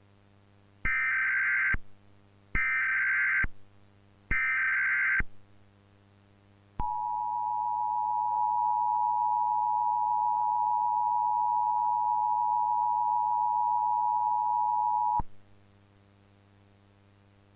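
Emergency Alert System tones: three short bursts of SAME header data tones, each about a second long, followed by the two-tone EAS attention signal held for about eight seconds. They mark the start of an emergency alert broadcast. A faint low hum runs underneath.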